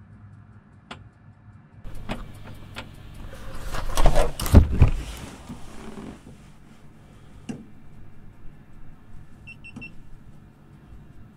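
Handling noise from an action camera and its mount being adjusted: scattered clicks, then a loud stretch of knocking and rustling a few seconds in, a single click later, and a few short electronic beeps near the end.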